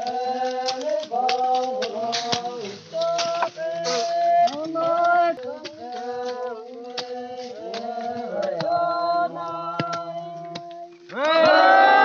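Several voices singing together in a group chant, with long held notes in harmony, and short sharp knocks of hoes striking the soil between them. About 11 seconds in, the voices break into a loud group cry that falls in pitch.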